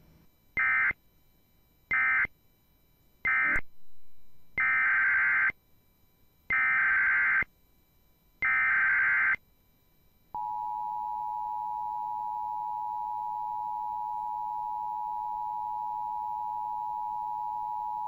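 Emergency Alert System digital data bursts: three short, screechy bursts of the end-of-message code, then three one-second header bursts, each about a second apart. About ten seconds in, the steady two-tone EAS attention signal begins and holds for about eight seconds.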